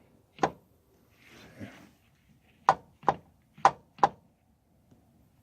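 Five sharp knocks of hard objects: one about half a second in, then four in quick succession a little past halfway, with a soft rustle in between.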